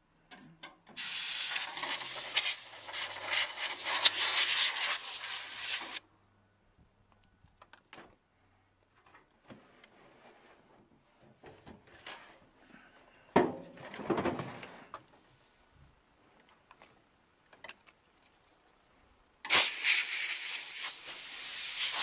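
Compressed air from a blow-gun nozzle, fed by a compressor at about 125 psi, hissing into the vents of a microwave oven's cabinet. Two long blasts of about five seconds each, one starting about a second in and one near the end, with light knocks and a short softer sound between them.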